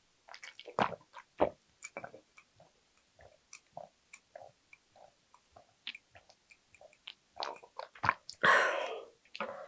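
Close-miked swallowing as someone drinks from a mug: a run of soft gulps and mouth clicks, then a loud breathy exhale near the end as the mug comes down.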